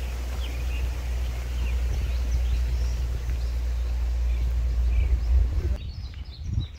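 Wind buffeting the microphone with a steady low rumble while small birds chirp. Near the end the rumble cuts off suddenly, leaving the birdsong and a few soft thumps.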